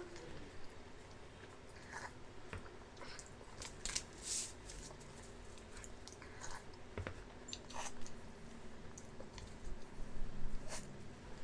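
Close mouth sounds of deviled eggs being eaten fast: chewing and biting with scattered wet smacks and clicks.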